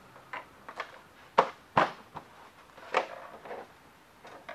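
Light knocks and clicks of parts being handled, set down and picked up on a workbench, the two loudest close together about a second and a half in.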